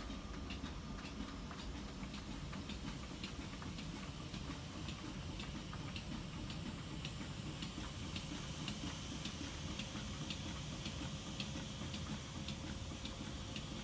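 Steady, even ticking, about two ticks a second, over a low steady hum.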